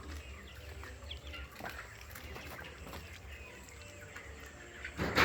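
A large flock of ten-week-old chickens chirping and clucking, many short calls overlapping, over a low steady hum. A brief loud rush of noise comes right at the end.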